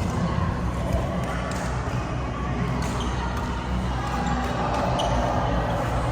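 Badminton rally in a sports hall: sharp racket hits on the shuttlecock every second or two, over a steady background hubbub of the hall.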